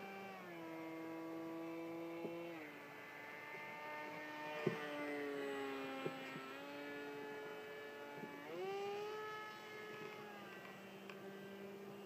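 An RC airplane's motor and propeller whining overhead, faint, its pitch dropping and climbing several times as the throttle changes. A couple of short clicks come through about halfway in.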